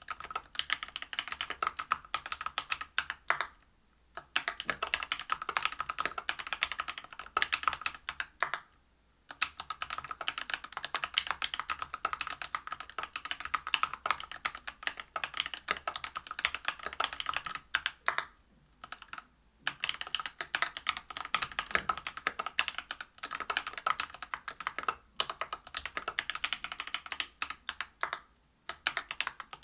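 Continuous fast typing on a Whale 75 mechanical keyboard with a brass plate, PBT keycaps and lubed Everglide BeesWax 67g linear switches: dense runs of key clacks, broken by a few short pauses.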